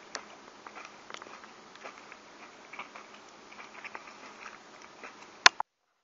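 A person chewing a mouthful of barbecued iguana meat close to the microphone: many small, irregular wet mouth clicks and smacks. About five and a half seconds in there is one sharp click, and then the sound cuts off.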